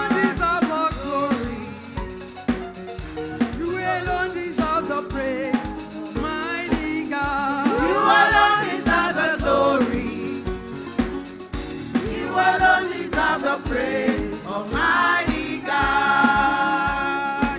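Gospel praise-and-worship music: voices singing over a band with a steady bass-drum beat and a shaker rattling along.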